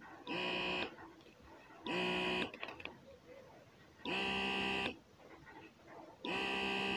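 S9 hands-free breast pump motor running on level 2, buzzing in short steady pulses about every two seconds as it cycles its pumping action; four pulses.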